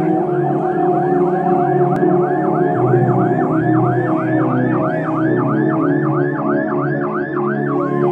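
Motorcade escort siren in fast yelp mode, rising and falling about three times a second without a break, over steady lower tones.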